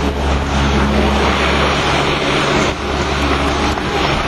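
C-130 Hercules' four Allison T56 turboprop engines and propellers running loud and steady with a deep hum as the aircraft rolls out after a short landing.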